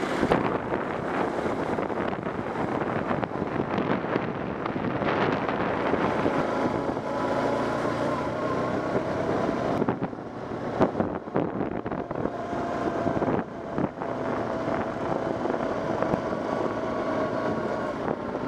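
ATV engine running steadily while riding over a gravel track, with wind buffeting the microphone and a few sharp knocks about ten to fourteen seconds in.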